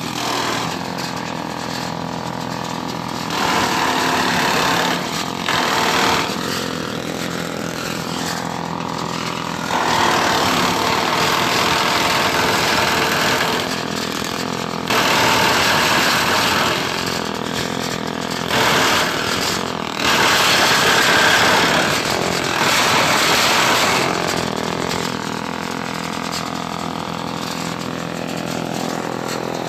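Engine-driven grass chopper (chaff cutter) running steadily. Louder, harsher stretches of a few seconds each come and go several times, as grass is fed through and chopped.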